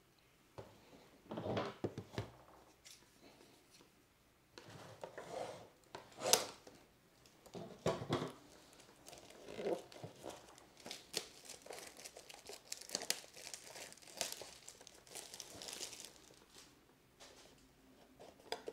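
Packaging of a Topps Gypsy Queen blaster box crinkling and tearing as the box is handled and opened: irregular rustles, with a quick run of crackles in the second half.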